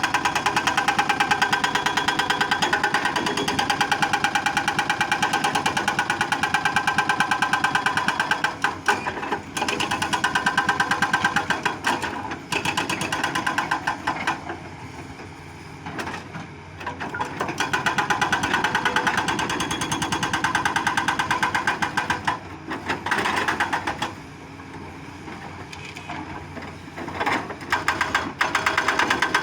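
Doosan excavator's diesel engine working under load, a loud rapid pulsing beat that eases off briefly twice before picking up again.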